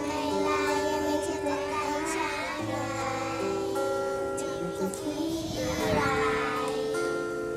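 Young children singing a pop song together over musical accompaniment with held, steady notes.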